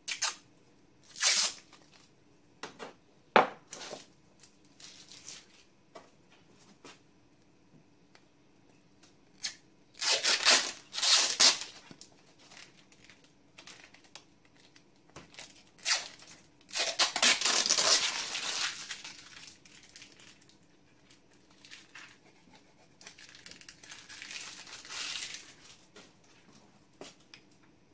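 Protective backing being peeled off laser-cut parts: several tearing rips, the longest about two seconds, with sharp clicks and knocks as the parts are handled.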